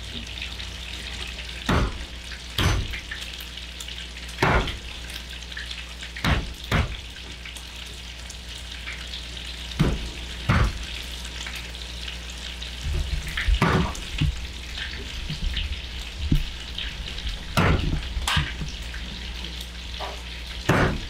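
Thick pork belly sizzling steadily in a pan on low heat, with a dozen or so irregular sharp knocks of a knife on a wooden cutting board.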